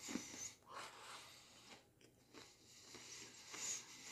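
A person biting and chewing an Oreo sandwich cookie: faint crunching and mouth sounds, with a few louder crunches.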